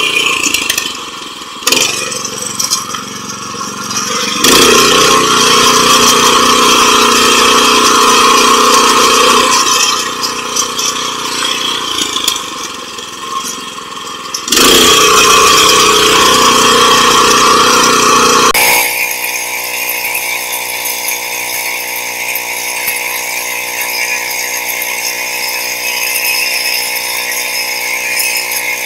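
Small engine of a 7 hp rotary tiller (power weeder) running under load, rising and falling in loudness as it is revved up and eased off, with some rattle. In the last ten seconds it settles into a steadier, evenly pitched drone.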